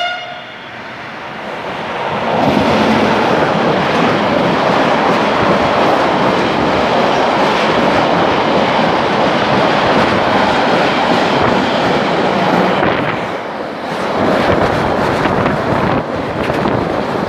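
Freight train of double-deck car-carrier wagons passing a station platform at speed: a loud, steady rumble of wheels on rail that builds over the first two seconds as the train arrives and carries on as the wagons go by.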